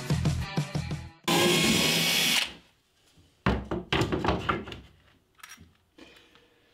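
Cordless drill-driver running for about a second, backing a screw out of a wooden cleat strip, followed by a few sharp knocks and clatter of wood.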